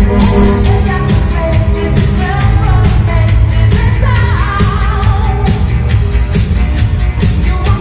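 Loud dance music with a singing voice, played over a dance hall's sound system and heavy in the bass.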